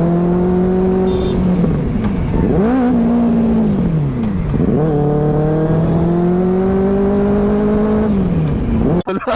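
Benelli 600i inline-four motorcycle engine running hard at steady revs, its pitch dropping and climbing back several times as the throttle is rolled off and on. The sound cuts off suddenly near the end.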